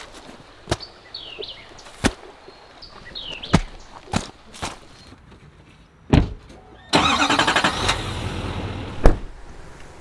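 Footsteps crunching through weeds and brush, with a couple of short bird chirps, then a loud thump about six seconds in as a Chevrolet Silverado 2500HD pickup's door shuts. The truck's engine starts and runs for about two seconds, and another sharp thump follows.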